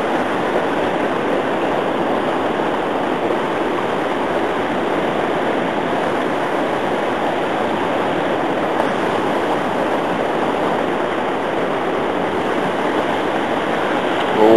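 River water rushing steadily, an even hiss.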